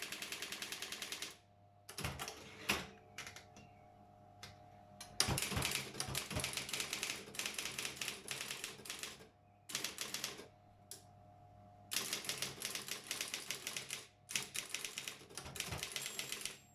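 Brother 4612 electric typewriter typing in bursts of quick keystrokes, with its motor humming steadily in the pauses between bursts. It opens with a fast, even run of strikes that stops after about a second.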